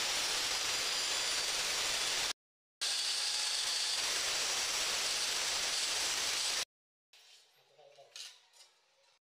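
Handheld electric tile cutter with a diamond blade cutting a ceramic tile: a loud, steady grinding hiss in two long stretches, each cut off abruptly. Fainter, uneven handling sounds with a few clicks follow in the last couple of seconds.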